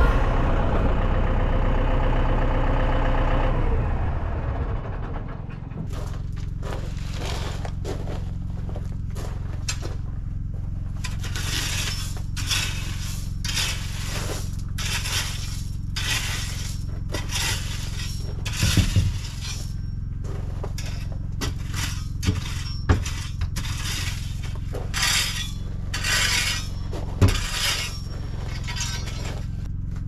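A tractor engine runs and dies away about four seconds in. It is followed by a long series of short scrapes and clinks, about one a second, as concrete pavers are handled and set down on gravel, with a few heavier knocks and a steady low hum underneath.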